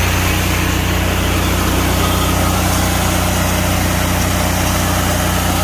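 An engine running steadily, with a continuous hiss over it.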